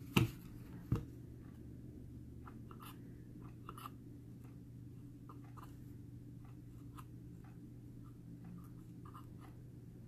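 Faint scratching and small clicks of steel tweezers pushing cotton wick under a vape coil on a rebuildable atomizer deck, with two dull knocks of handling within the first second and a steady low hum underneath.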